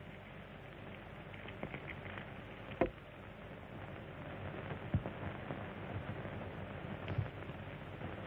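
Steady hiss of an old optical film soundtrack, broken by three short scattered knocks, the loudest about three seconds in.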